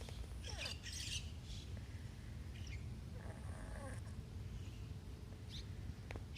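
A few short, high bird chirps, one about a second in and more near the middle and near the end, over a steady low rumble.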